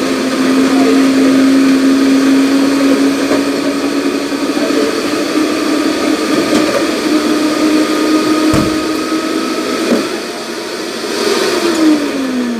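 Electric bar blender motor running at a steady pitch that creeps slightly upward. About eleven seconds in it is switched off, and its pitch falls as the motor winds down.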